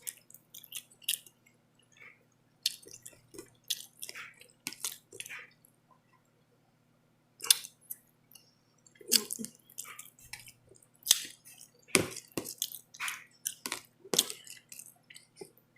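Close-up eating sounds: wet mouth smacks and chewing clicks at irregular intervals, with the odd scrape of a spoon on a plate.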